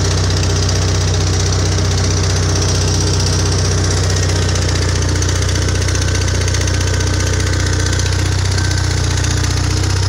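Skid steer loader's engine running at a steady, unchanging speed, a constant low drone.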